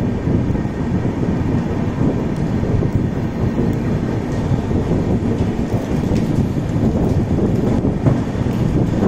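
Steady rumble and wheel-on-rail noise of a moving passenger train's coaches, heard from onboard the train.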